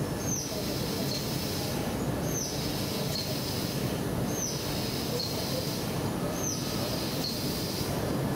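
CNC machining centre spindle tapping M6 threads into a cast-iron engine block, one hole after another. Each tapping cycle gives a high whine that falls in pitch, about every two seconds, four times, over a steady machine rumble.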